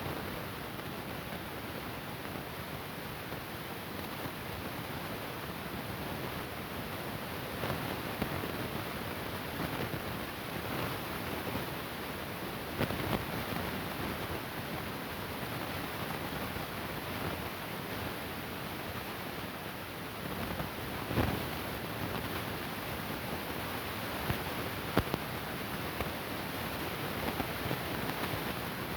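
Steady recording hiss, with a few faint clicks and knocks scattered through it.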